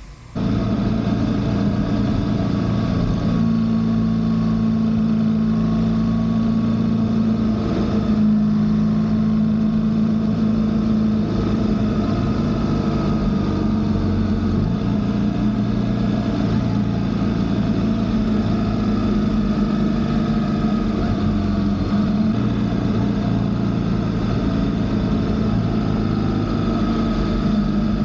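BMW R1300GSA's boxer-twin engine running steadily while riding, over a constant rush of noise. The engine note shifts in pitch a few times with throttle changes. The sound starts abruptly just after the beginning.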